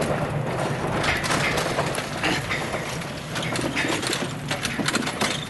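Electric commuter train pulling away, its wheels clicking irregularly over rail joints and points over a steady low hum, slowly fading.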